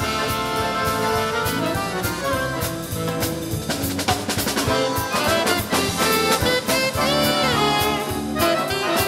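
An accordion ensemble with drum kit and bass playing a swing jazz arrangement. It opens on held chords, then moves into busier melodic lines over the drums.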